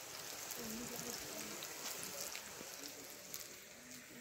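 Pakora batter frying in a large kadhai of hot oil: a steady sizzle and crackle of bubbling oil.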